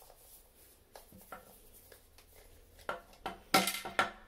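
Small clicks of a screwdriver working a screw out of a plastic toilet fill valve, then a clatter of hard knocks with brief ringing near the end as the metal screwdriver and loose screws are set down on the toilet lid.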